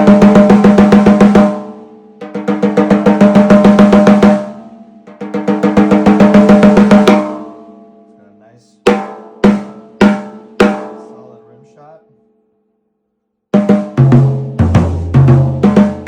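A 14x8 maple/mahogany alternating-stave snare drum with triple-flanged hoops, tuned medium to medium-low. It plays three loud rolls of about two seconds each, then four single strokes with a ringing tail. After a short gap it plays a steady beat with a kick drum underneath.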